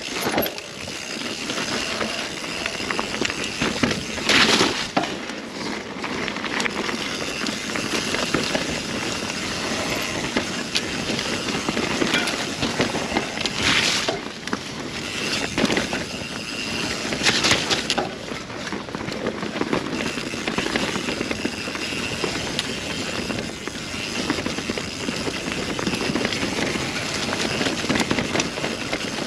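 Mountain bike riding down a woodland dirt trail: steady tyre and rattle noise from the bike, with a few brief louder jolts scattered through.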